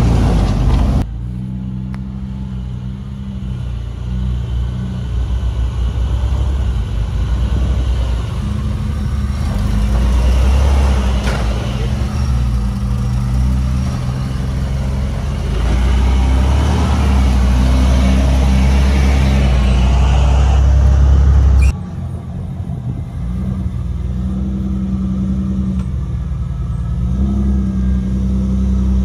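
An off-road 4x4 truck's engine running under load on a trail, its pitch rising and falling as the throttle changes. The sound changes abruptly about a second in and again after about twenty-two seconds.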